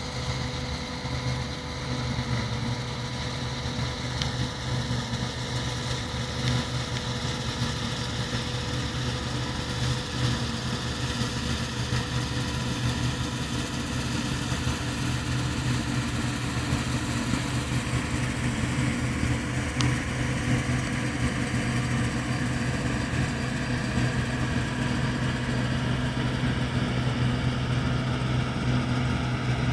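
John Deere 975 combine harvester running steadily: a constant, even machine drone with a steady hum, unbroken throughout.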